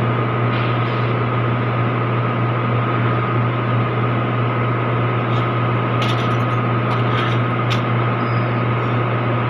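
Steady low hum with an even hiss over it, and a few faint clicks between about six and eight seconds in.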